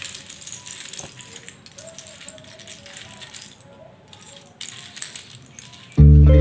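Many small pattern-block pieces clattering and clicking against each other and the tabletop as hands sweep and spread them apart, a steady run of small rattles. About six seconds in, loud guitar music starts.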